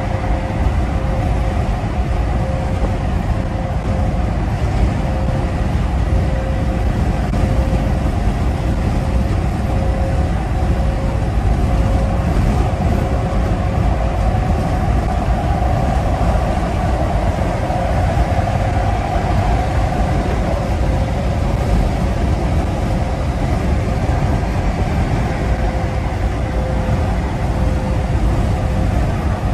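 Steady in-cab noise of a 2012 Peterbilt semi truck cruising at highway speed: the low drone of its Paccar diesel engine mixed with road and wind noise, with a thin steady whine over it.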